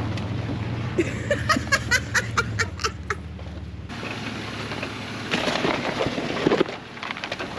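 Jeep Wrangler TJ engine running low and steady, with a quick run of sharp clicks and cracks about a second in. The engine hum drops out about three to four seconds in, leaving a rough rustling noise with a few knocks.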